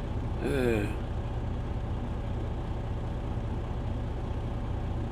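Steady low hum of an idling truck engine.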